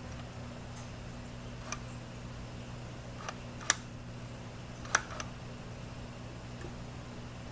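Nikon AF-S 70-200mm f/2.8 VR lens autofocusing on a D7000, giving about five short sharp clicks, the loudest two about a second apart near the middle, over a steady low hum. The clicks come as focus settles on the right spot and, by the owner's account, are normal for this lens, not the VR.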